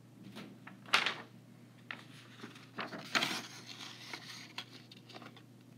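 Handling sounds of someone shifting things around: scattered light clicks and knocks, with a sharp knock about a second in and a louder cluster of knocks and rustling about three seconds in, over a faint steady hum.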